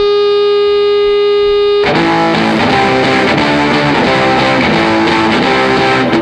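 A steady, held electronic-sounding tone, then about two seconds in distorted electric guitar rock music starts.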